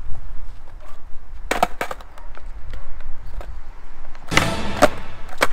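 Skateboard clacking on brick paving: two sharp knocks as the board is set down, then a short rush of noise with more knocks and a last sharp clack near the end as a trick is tried.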